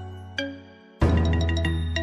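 Background music: light instrumental music with bright chiming notes over a held bass, a new chord coming in about a second in.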